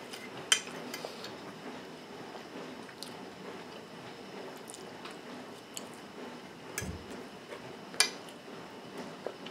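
Metal fork clinking against a plate, two sharp clinks, one about half a second in and one near the end, with quieter chewing of a mouthful of salad in between.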